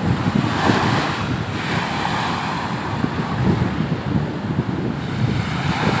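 Sea waves breaking and washing up the sand at high tide, with a louder surge about a second in. Wind buffets the microphone with a gusty low rumble.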